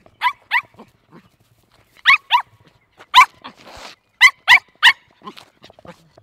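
Puppy yapping: about eight short, high-pitched barks in twos and threes, each dropping in pitch, then a few fainter yips near the end.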